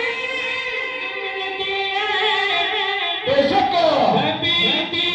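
Devotional naat singing: a voice holding long melodic notes, with a louder sweeping ornament that slides down and back up about three seconds in.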